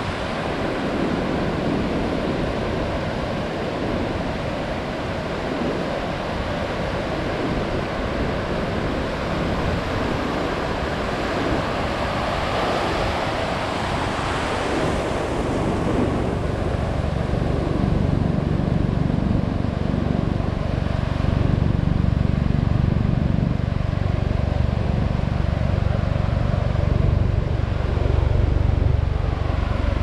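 Pacific surf breaking and washing up a sandy beach in a steady wash of noise, with one wave's wash swelling up about halfway through. A deep low rumble builds through the second half.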